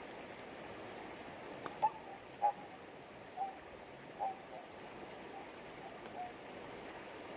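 A bird giving a series of short calls, about six of them, the first two loudest and the rest fading, over a steady rush of flowing water.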